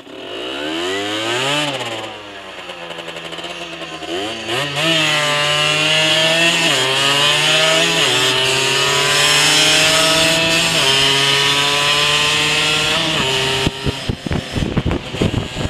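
Rieju SMX 50cc two-stroke moped engine on its standard exhaust, heard from onboard as it accelerates through the gears, the pitch climbing and dropping back at each upshift. Near the end the engine note falls away and wind buffets the microphone.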